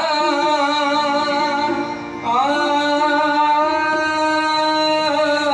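Devotional bhajan singing: a male singer holds long drawn-out notes, with a second note sliding up into pitch a little over two seconds in, over a steady accompanying drone.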